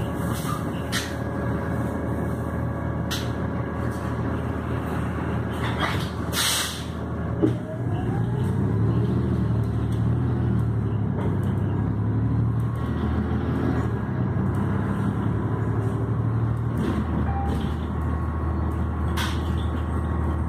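City bus engine running steadily, heard from inside the cabin, with a short hiss of air and a knock about six to seven seconds in, typical of the air brakes releasing. The engine note then rises as the bus pulls away and accelerates.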